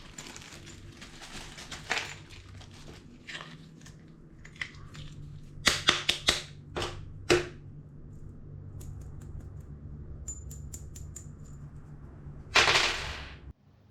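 A 200 A DC moulded-case breaker and its packaging being handled: a quick run of sharp clicks and snaps midway, lighter ticking after, and a loud rustle near the end, over a steady low hum that cuts off at the very end.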